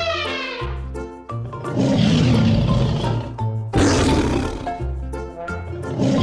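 Loud, drawn-out animal roars, three of them, over background music with steady low notes and a regular beat.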